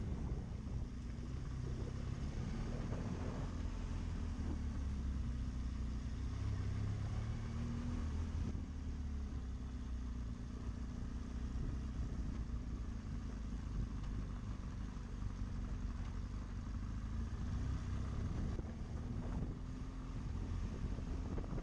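A BMW GS adventure motorcycle's engine runs steadily at low road speed. Its low note drifts a little in pitch over a steady hiss of wind and road noise.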